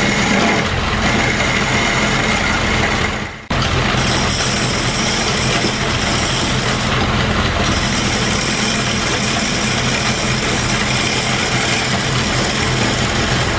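Homemade wood lathe's electric motor running with a steady hum while a reground chisel cuts out the inside of a wooden bowl, making a continuous rough cutting noise. The sound drops out briefly about three and a half seconds in and comes straight back.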